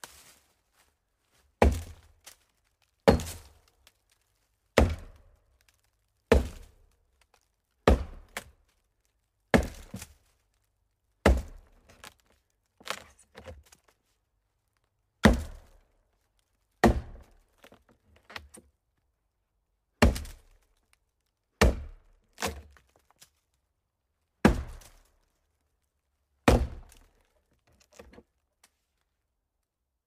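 Axe chopping wood: a series of sharp blows, roughly one every one and a half seconds, each dying away quickly, with a few lighter strikes in between.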